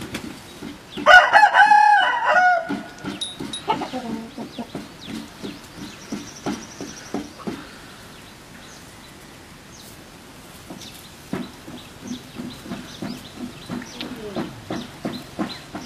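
An animal's loud, pitched call lasting about a second and a half near the start, then a long run of short, rapid low calls.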